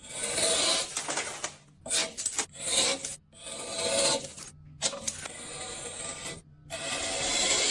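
Ice being scraped in several rasping strokes, each lasting a second or so, with short gaps between them.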